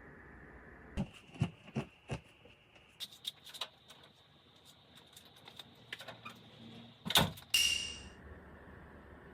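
A series of clicks and knocks, as of small objects being handled: four sharp knocks, then a run of lighter clicks, a louder knock about seven seconds in, and a short high-pitched sound right after it.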